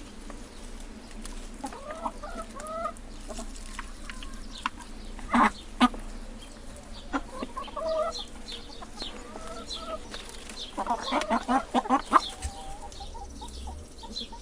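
Domestic hens clucking: short calls that rise and fall in pitch, coming in scattered groups, with a dense run of overlapping clucks near the end. Two sharp knocks sound about five and a half seconds in.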